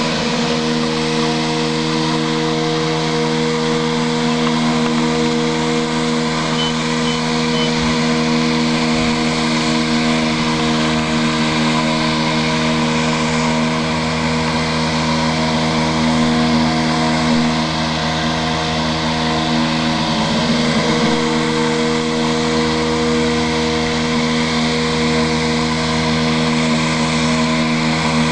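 Homemade robotic lawn mower in a Black & Decker mower housing running, its electric motor giving a steady whining hum. The pitch wavers briefly about two-thirds of the way in.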